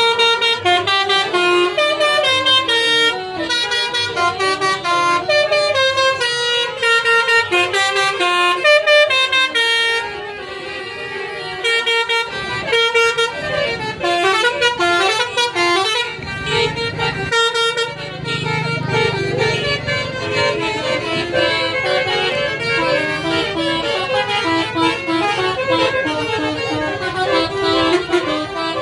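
Tour bus 'telolet basuri' musical horn playing a fast tune, its notes changing several times a second, with short breaks about ten seconds in and again near seventeen seconds. A low engine rumble sits under the horn for a few seconds after the second break.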